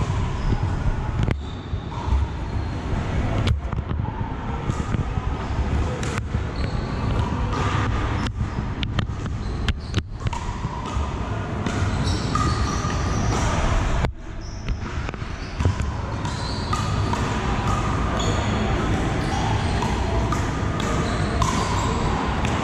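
Pickleball paddles striking the hollow plastic ball, sharp pops at irregular intervals from this and the neighbouring courts, echoing in a large hall.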